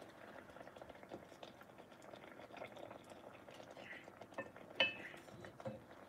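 Faint steady bubbling and crackle of fish fillets simmering in melted butter and their own juices, with a wooden spatula scraping and tapping in the dish as the pieces are broken apart to test for doneness. One sharper tap comes about five seconds in.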